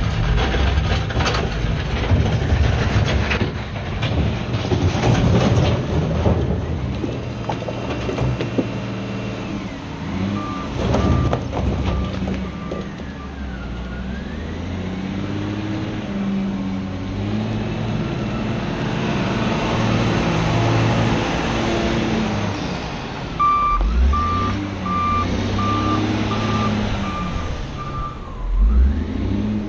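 Cat 966G wheel loader's diesel engine running and revving as it works the stone yard, with clattering of rock in the first few seconds. Its back-up alarm beeps steadily twice, once for a few seconds around the middle and again for several seconds near the end.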